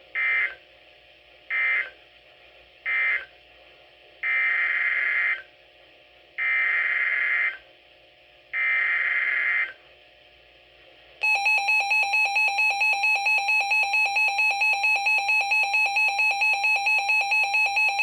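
NOAA Weather Radio SAME data bursts: three short end-of-message bursts, then three longer header bursts encoding the next warning. About 11 seconds in, a loud, steady warning alert tone begins, pulsing about three times a second.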